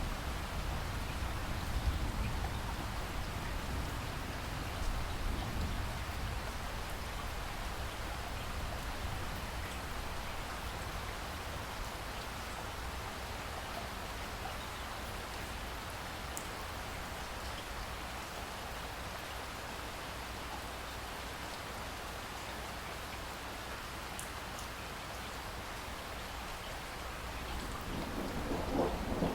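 Steady rain falling, a soft even hiss. A low thunder rumble fades away over the first few seconds, and a new roll of thunder starts building near the end.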